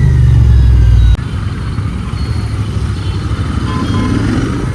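Motorcycle engine running on the move, mixed with road and traffic noise. The sound drops abruptly in level about a second in, then carries on as a steadier rumble with a couple of faint short beeps near the end.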